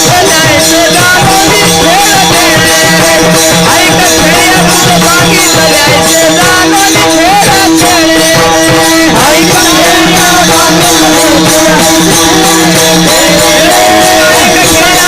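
Kirtan devotional singing: voices singing an abhang over a sustained drone, with jingling hand percussion keeping a steady beat.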